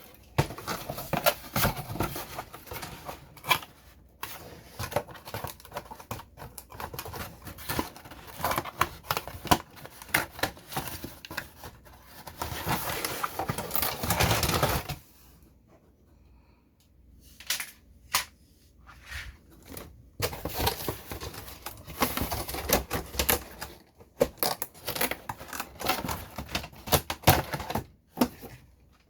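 Handling noise from unboxing a plastic toy snow groomer: rapid clicks and knocks of plastic parts and packaging. A few seconds of continuous rustling comes about halfway through, then a short lull before the clicking resumes.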